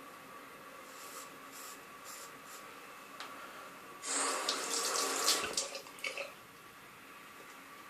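A tap runs briefly into a sink, starting about four seconds in and lasting a second and a half, with a few splashes just after. Before it come faint scraping strokes of a safety razor on stubble.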